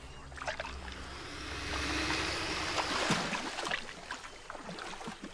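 Water sloshing at the edge of a lake where an alligator lies low: a rush of water noise that swells over the first three seconds and then drops away, over a low hum at the start.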